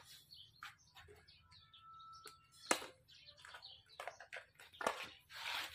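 Scattered clicks and knocks of a plastic engine-oil jug being picked up and handled, with one sharper click about halfway and a brief rustling scrape near the end.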